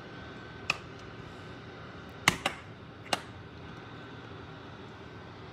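A few sharp clicks or light knocks: one just under a second in, then three close together between about two and three seconds in. Under them runs a steady background hum with a faint high whine.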